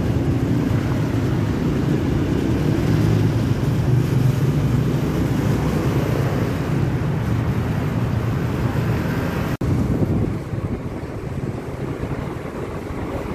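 Steady outdoor road-traffic rumble mixed with wind on the microphone. It breaks off for an instant at a cut about nine and a half seconds in and carries on a little quieter.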